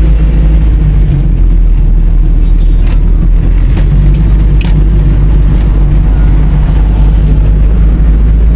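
Steady low rumble of a car in motion, with a few faint clicks.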